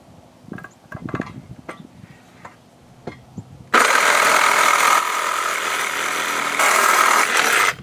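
DeWalt 20V cordless reciprocating saw with a metal-cutting blade sawing through a galvanized steel post spike. A few light taps as the blade is set against the metal, then nearly four seconds in the saw starts and runs loud and steady through the steel, getting brighter near the end before stopping abruptly.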